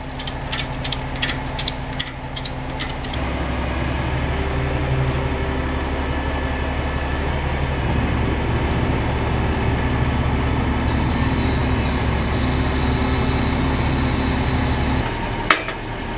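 A ratchet strap clicking as it is ratcheted tight, about three clicks a second, for the first few seconds. Then the tow truck's engine runs steadily and louder until it drops back near the end.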